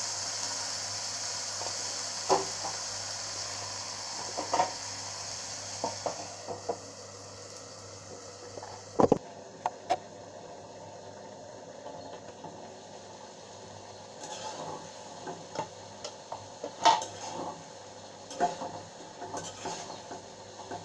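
Okra and potato curry sizzling in an aluminium karahi, with the sizzle fading away over the first six seconds after a little water is added. A metal spatula clinks against the pan, with a louder clank about nine seconds in as the aluminium lid goes on. Near the end come the scraping and clinking of the curry being stirred in the uncovered pan.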